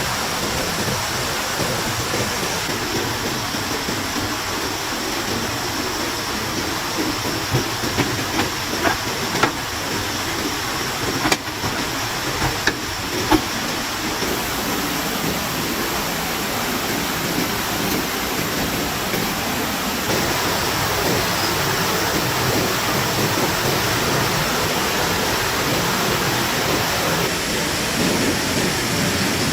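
A steady rushing hiss, with a few sharp knocks clustered a third of the way in.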